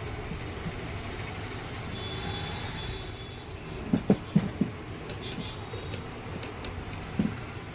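Sewing machine running with a steady low rumble. A quick cluster of knocks comes about four seconds in, and a single knock near the end.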